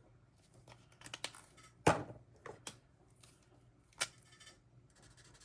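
Small clicks, taps and rustles of pens and paper being handled on a desk, with one sharp knock about two seconds in and a smaller one about four seconds in.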